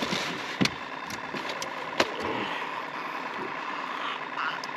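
A boat motor running steadily, with a few sharp knocks and clicks from handling in the boat, the loudest about two seconds in.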